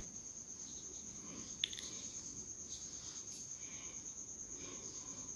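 Quiet room tone with a faint, steady high-pitched tone. There are two soft clicks, one at the start and one about one and a half seconds in.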